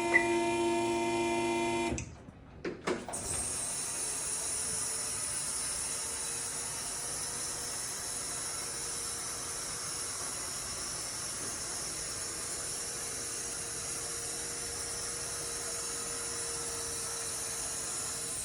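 Vehicle lift being lowered: the lift's pump motor hums for about two seconds, a couple of clicks follow, then a long steady hiss as the lowering valve lets the car down.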